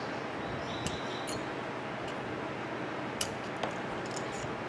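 A few light, scattered clicks and ticks as the blender motor's metal brush holders and carbon brushes are handled, over a steady background hiss.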